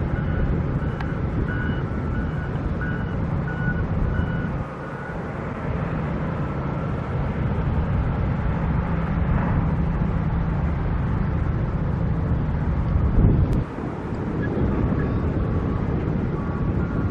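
Diesel engines of heavy construction machinery running steadily, with a backup alarm beeping on and off in the first few seconds and again faintly near the end.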